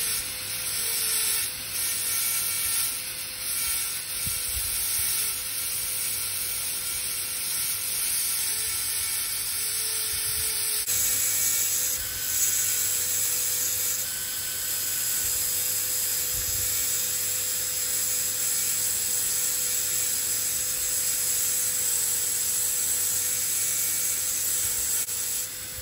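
High-speed dental handpiece running steadily with a high whine and hiss, its chamfer bur grinding the axial wall of a plastic typodont molar to cut a chamfer finishing line.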